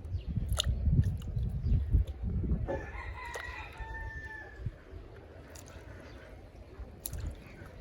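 A rooster crows once, a single call of about two seconds starting nearly three seconds in. Before it come louder low thumps and knocks.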